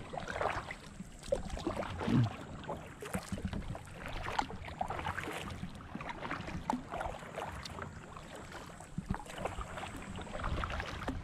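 Double-bladed kayak paddle strokes: the blades dipping and splashing in the water on alternate sides, with irregular small splashes and drips throughout.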